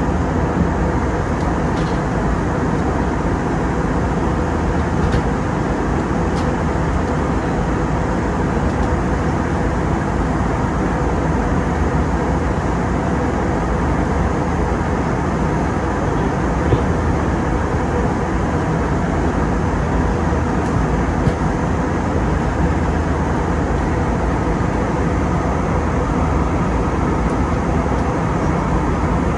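Steady cabin noise of an Airbus A320neo in flight: the even roar of airflow and engines heard from inside the cabin at a window seat, unchanging throughout.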